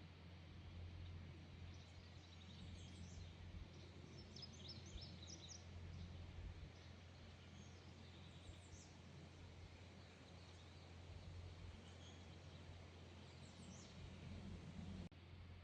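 Faint birds chirping and singing in short scattered phrases over a low steady rumble. The sound drops out for an instant near the end.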